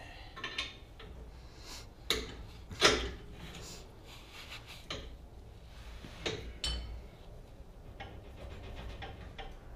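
Metal clanks and knocks as an R180 rear differential is worked into place on a transmission jack under the car, the loudest about three seconds in, then a rapid run of clicks near the end.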